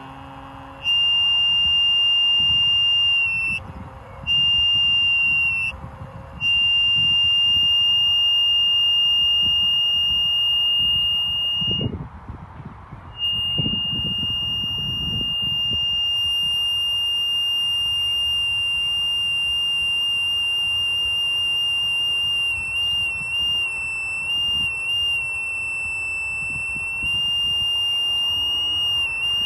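Microphone feedback from a handheld mic held to a small practice amplifier: a loud, single high-pitched squeal that cuts out and comes back several times, with a longer gap about twelve seconds in. Near the end the tone wavers up and down in pitch.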